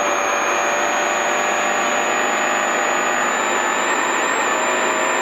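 Rally car's engine running hard at steady revs, heard from inside the cabin, with a constant rushing noise and no change in pitch.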